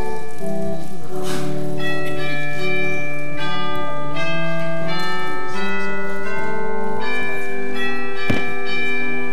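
Organ playing slow, sustained chords, each held for a second or more before moving to the next.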